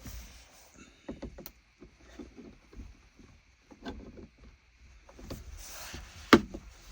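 Small clicks and knocks of plastic car interior trim being handled while a light is refitted, ending in one loud sharp snap a little past six seconds in.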